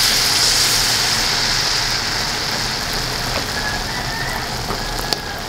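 Spoonfuls of cempedak fritter batter deep-frying in a wok of hot oil: a loud sizzle that slowly dies down, with a couple of light clicks near the end.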